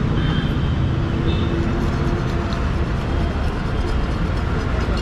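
Steady low rumble of background noise, with a few faint short tones above it.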